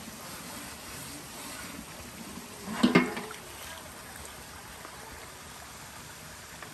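Water running from a pipe spout in a steady trickle, with a short, louder clatter of dishes about three seconds in.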